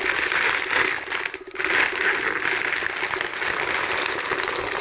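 Packaging wrapper crinkling and rustling as it is handled, a continuous crackle with a brief pause about a second and a half in.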